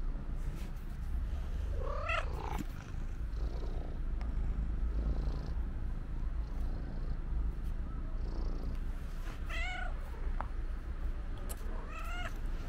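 Black-and-white cat meowing three times: one rising-and-falling meow about two seconds in, a shorter one near the middle, and another near the end, over a low steady rumble.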